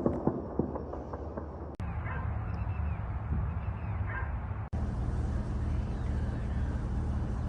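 A dog giving short yips and whimpers over a steady low hum, in a few edited clips joined by abrupt cuts about two and five seconds in.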